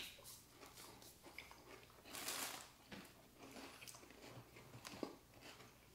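Faint biting and chewing of a chocolate bar filled with crunchy rice puffs, with small soft crunches throughout and a slightly louder crunchy stretch about two seconds in.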